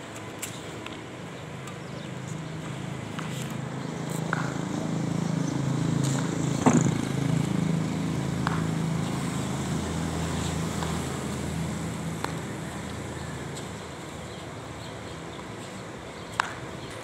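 Badminton racket tapping a shuttlecock in a series of light clicks, roughly one every second and a half. Under the clicks a motor vehicle engine hums, swelling from about two seconds in and fading away after about twelve seconds.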